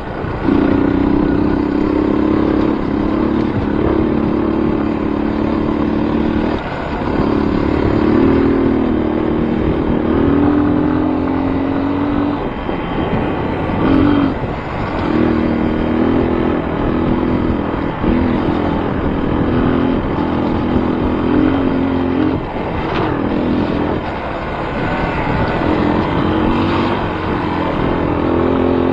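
A motor vehicle's engine running hard, its pitch stepping up and down again and again with brief drops in between.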